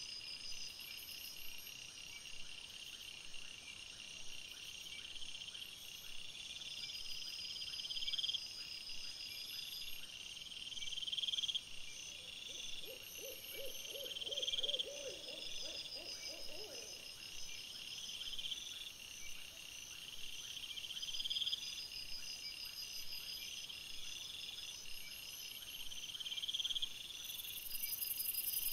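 Night insects chirping: a constant high trilling, with a buzzy rising phrase repeated about every three seconds. For a few seconds in the middle a lower, rapidly pulsed trill joins in. Near the end a louder, higher buzz starts.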